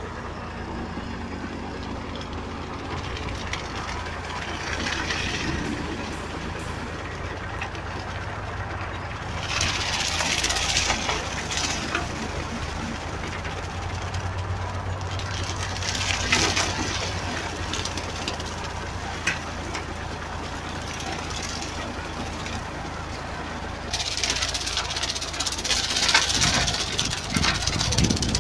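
Fordson Dexta tractor engine running steadily under load while its rear-mounted slasher cuts blackberry bush, with spells of louder crackling, rushing noise as the blades chew through the brush, about ten seconds in, again around sixteen seconds, and for the last few seconds.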